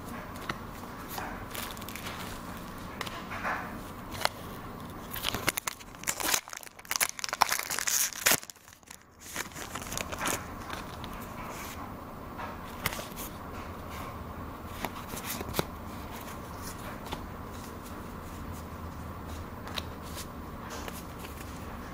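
Pokémon card booster pack wrapper crinkling and tearing open, with cards handled, in a cluster of crackles about a quarter of the way in. Otherwise scattered faint ticks over a steady low hum.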